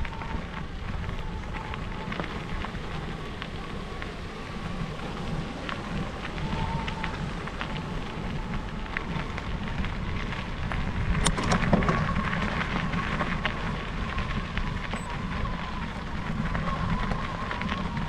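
Electric mountain bike rolling over a gravel trail: a steady crackle of tyres on loose stones with wind rushing on the microphone, a little louder about two thirds of the way in.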